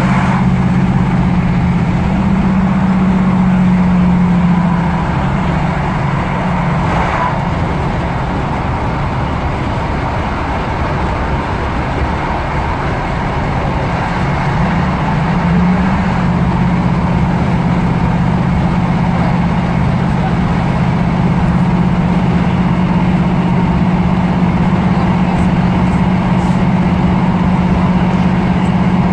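Class 323 electric multiple unit running, its traction equipment humming as a steady chord of low tones over running noise. The hum dips in pitch about five seconds in and glides back up about fifteen seconds in.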